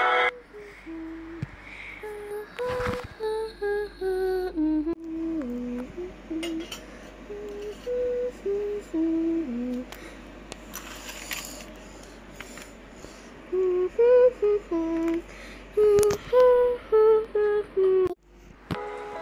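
A person humming a slow, simple tune, one held note after another. A few light knocks and clicks from handling come in between.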